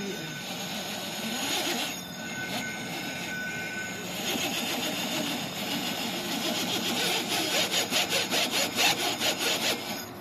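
RC rock crawler's electric motor and geared drivetrain grinding as it crawls up rock, its tyres scraping and scrabbling on the stone. In the second half the scraping pulses rapidly, about five times a second.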